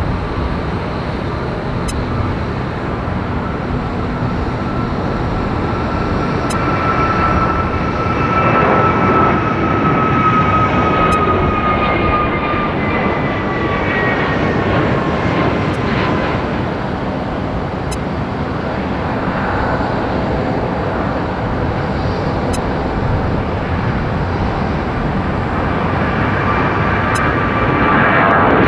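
Jet airliner engines as an Airbus A321neo passes: a steady jet noise with a whine that slowly falls in pitch. About two-thirds of the way in, a second jet, a Boeing 737-700, follows, its engines growing louder near the end.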